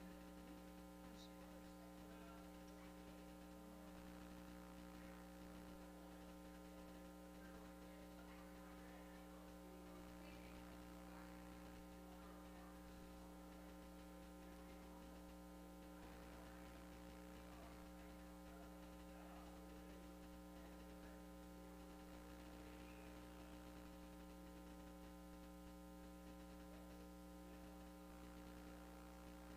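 Near silence with a steady electrical mains hum and its overtones, unchanging throughout.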